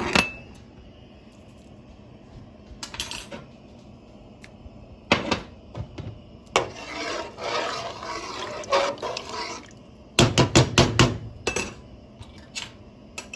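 A metal spoon clinking and scraping in a steel cooking pot of spiced water and potatoes: a few single clinks, a few seconds of stirring in the middle, then a quick run of about six knocks a little after ten seconds in.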